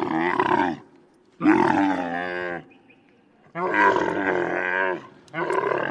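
A camel calling: four drawn-out calls, each about a second long, wavering in pitch, with short gaps between them.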